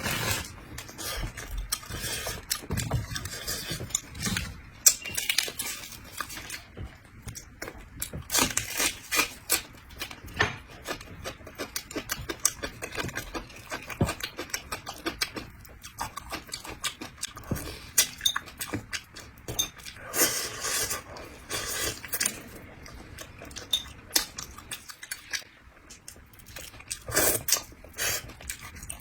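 A person eating a bighead carp head up close to the microphone: irregular wet sucking, smacking and chewing sounds, with light clicks of chopsticks or a spoon against the bowl.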